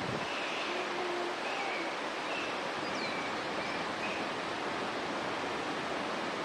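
Steady outdoor rushing noise at an even level, with a few faint, short high chirps scattered through it.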